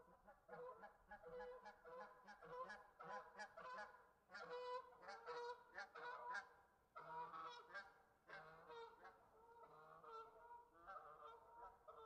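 Geese honking, one call after another in quick succession, with calls often overlapping and brief gaps about four and seven seconds in.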